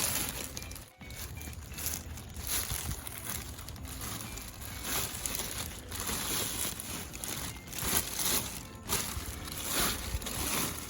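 Plastic bags rustling and crinkling in uneven bursts as they are handled and pulled about.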